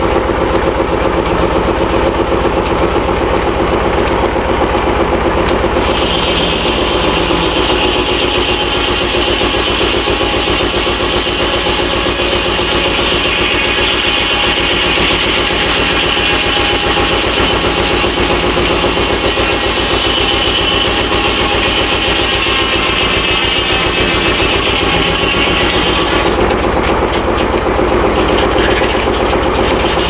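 Sawmill's engine running steadily under load. From about six seconds in until near the end, the saw cuts through a log, adding a higher whine over the engine.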